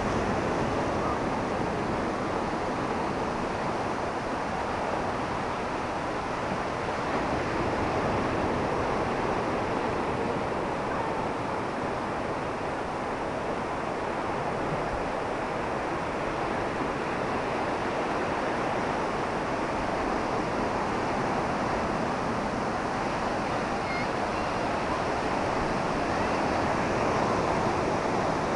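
Atlantic surf breaking and washing along the shore, a steady rush of waves that swells and eases slightly.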